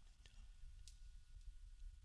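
Near silence: a faint low hum with a thin steady high tone and a couple of faint ticks.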